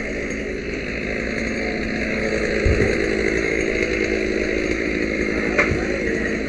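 A small engine running steadily, with one knock about a third of the way in.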